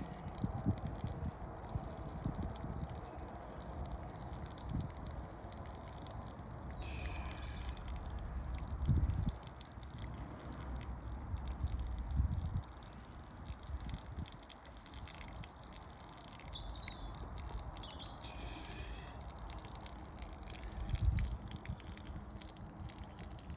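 Water draining out of a uPVC door through an opened screw hole in a steady pour and trickle. The door is full of trapped water. A few low thumps come through, one about nine seconds in and another near the end.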